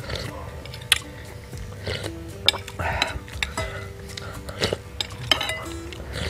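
Slurping spicy seblak broth from a spoon, with metal spoon and fork clicking against the bowl several times, over soft background music.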